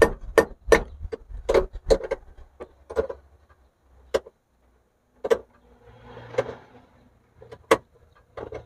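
Wrench working on a car battery's terminal clamp: a quick run of sharp metallic clicks, about two to three a second, over the first few seconds, then a few scattered single clicks.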